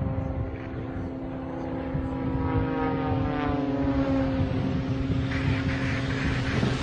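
Propeller airplane engine running steadily, with part of its tone gliding down in pitch about three to five seconds in.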